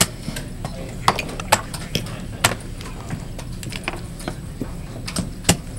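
Plastic chess pieces knocked down on a vinyl board and a digital chess clock's buttons pressed during a fast blitz game. The sharp clicks come in a quick run over the first two and a half seconds, then once more near the end, over steady hall noise.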